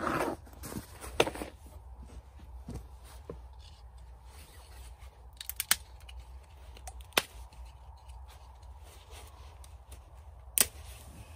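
Small tinder fire of birch bark and fatwood crackling, with a few scattered sharp pops, the loudest near the end. A short rustle at the very start.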